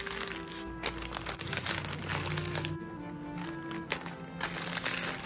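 Background music with held notes, over the crinkling of plastic poly mailers as hands handle them and press them flat.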